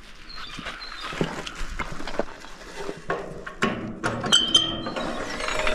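Clanks and knocks from a metal bear-proof garbage bin as its hinged lid is handled and lifted, with a brief high squeak about four seconds in.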